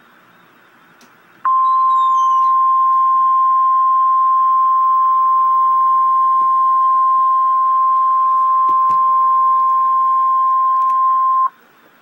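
Loud NOAA Weather Radio 1050 Hz warning alarm tone: one steady, unbroken high tone that starts about a second and a half in, holds for about ten seconds and cuts off abruptly. It is the attention signal that comes before a broadcast severe thunderstorm warning.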